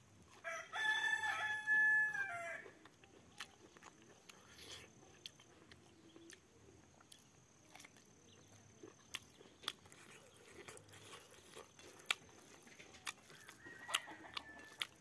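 A rooster crowing once near the start: one long call of about two seconds, the loudest sound here. After it come the soft clicks and smacks of someone eating rice by hand, and a fainter call near the end.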